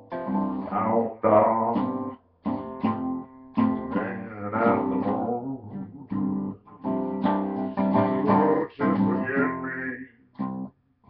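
Man singing in a bass-baritone voice to his own acoustic guitar, in phrases with short breaks between them.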